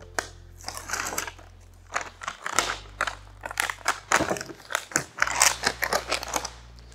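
Paper mailer envelope crinkling and rustling as it is handled and folded by hand to pack an order, in a run of irregular crackles.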